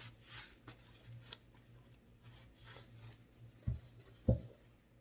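Hands being scrubbed together while washing: a run of short rubbing, scratching strokes over a low steady hum, with two dull thumps near the end.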